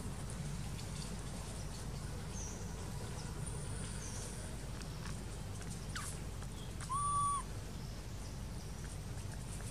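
Birds calling in the surrounding trees. Faint short, high chirps come first, then one clear, level whistled note about half a second long, the loudest sound, about seven seconds in. A steady low hum runs underneath.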